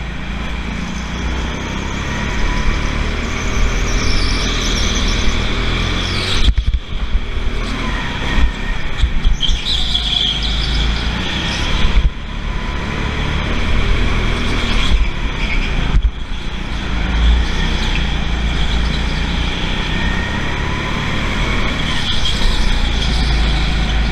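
Go-kart lapping an indoor track, heard from onboard: a steady low rumble from the kart, with tyres squealing through the corners. The squeal's pitch rises and falls from bend to bend, and the sound dips briefly a few times.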